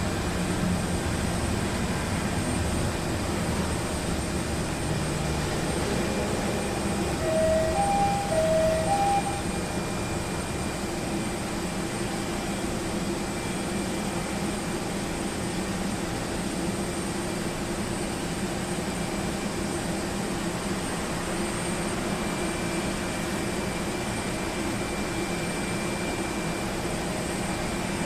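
Steady drone of a moving vehicle, with a constant high whine over it. About seven to nine seconds in comes a short run of beeps alternating between two pitches.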